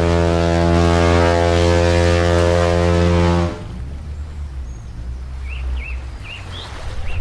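Ship's horn sounding one steady, low blast for about three and a half seconds. It cuts off to a low rumble, with short chirping bird calls starting about two seconds later.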